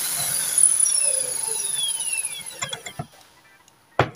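Corded hammer drill in plain drill mode, its motor released after drilling a steel bar: the whine falls in pitch as it spins down over about two and a half seconds. Near the end come a few sharp knocks as the drill is set down on the workbench.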